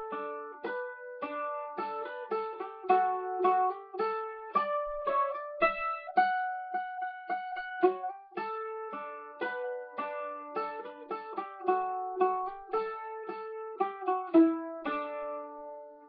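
Acoustic oval-hole mandolin played solo, a melody picked in quick single notes with some longer held notes. The tune ends near the end on a note that rings and fades.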